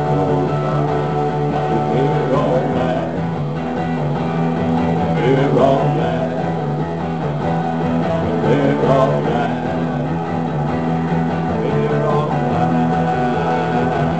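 Live rock band playing without vocals: electric guitars, electric bass and synthesizer keyboard, with some notes gliding in pitch.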